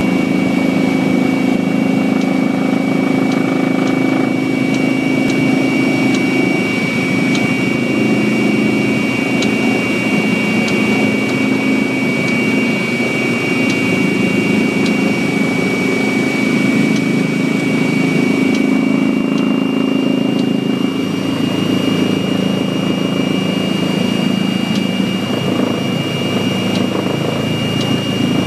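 Cabin noise inside a Eurocopter EC135 twin-turbine helicopter in flight on its descent to land: a steady high whine over a dense low drone. The low drone shifts slightly in tone about two-thirds of the way through.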